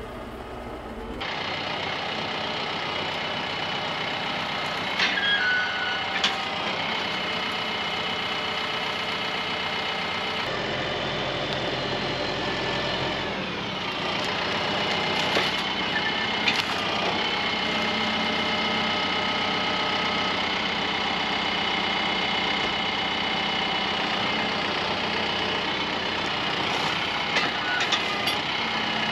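Tractor diesel engine running steadily while the front-loader grapple works logs, with several sharp clunks and knocks from the grapple and logs along the way.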